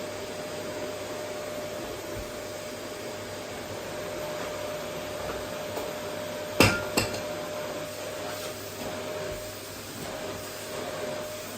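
Vacuum cleaner running steadily with a constant hum. About halfway through come two sharp knocks in quick succession, the loudest sounds here.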